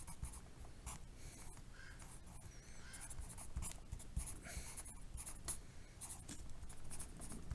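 Pencil writing on lined notebook paper: a run of short, irregular scratching strokes as numbers are written out.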